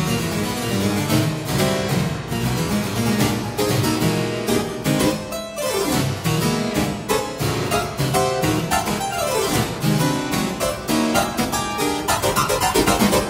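Solo two-manual harpsichord playing fast, dense, rhythmic passagework. Quick downward runs come about halfway through and again near ten seconds, and the playing grows louder and busier in the upper register near the end.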